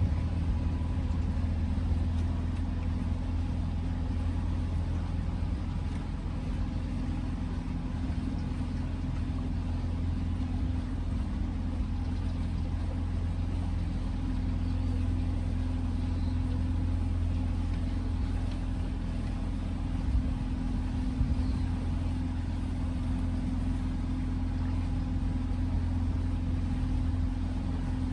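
Outboard motor of a flat-bottomed canal tour boat running steadily as the boat cruises: an even, low drone.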